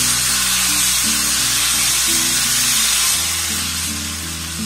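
Batter sizzling as it is piped in a spiral onto a hot, oiled tawa: a steady hiss that eases a little near the end, over background music.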